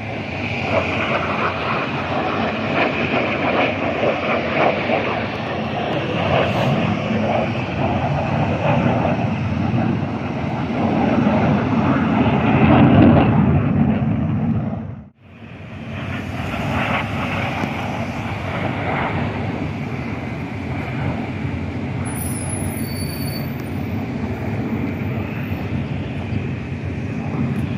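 Aircraft engine noise from a plane flying overhead: a loud, steady rumble that swells to its loudest about thirteen seconds in, cuts off abruptly at about fifteen seconds, then comes back as a steadier, lower rumble.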